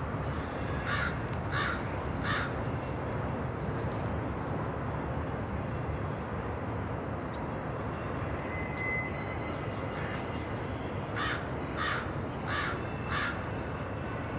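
A crow cawing, three short caws about a second in and four more near the end, over the steady low rumble of a double-stack container freight train rolling past.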